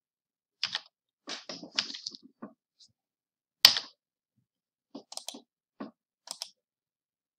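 Computer keys and mouse buttons being clicked: a scattering of short separate clicks and taps, with one sharper, louder click about three and a half seconds in.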